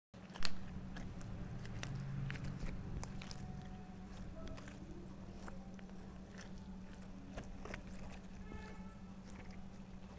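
Slime with crumbled makeup mixed in being squished and kneaded by hand in a plastic tub: a continuous run of sticky crackles and popping clicks, with one loud click about half a second in. A steady low hum runs underneath.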